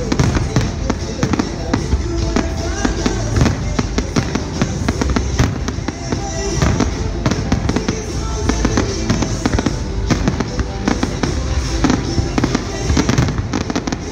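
Aerial firework shells bursting, many bangs and crackles in quick succession, with music playing alongside.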